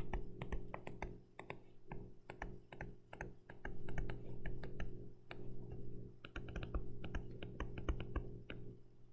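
Stylus pen tip clicking and tapping on a tablet screen during handwriting: a rapid, irregular run of sharp ticks over a steady low electrical hum.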